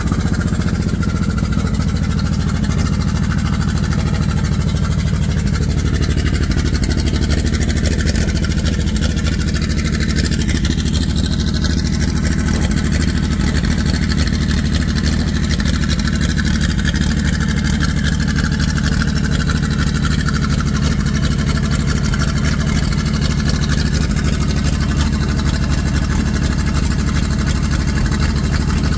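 Race car's engine idling steadily with a fast, even pulse.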